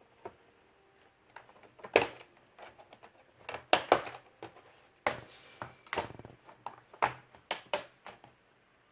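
Irregular clicks, taps and knocks of small hard plastic and metal parts being handled, about a dozen over several seconds, with a brief rustle in the middle.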